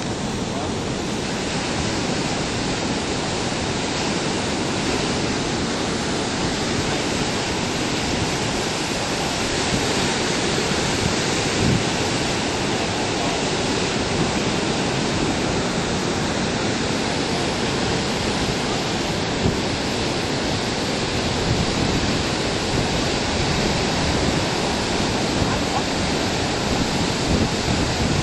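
Ocean surf breaking and washing ashore in a steady rush, with wind on the microphone.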